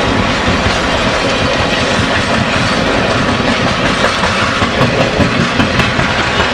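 Railroad passenger coaches rolling past at speed: a steady rumble of wheels on rail, with a run of clicks over the rail joints near the end.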